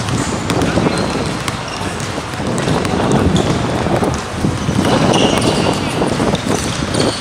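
Pickup basketball game on a hard outdoor court: the ball bouncing and players' footsteps, with short high sneaker squeaks from about five seconds in.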